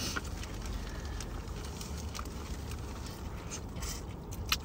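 Eating a sauce-covered crab boil with gloved hands: scattered small clicks and crackles of plastic gloves and bags, shell handling and chewing, with one sharper click near the end, over a steady low hum inside a car.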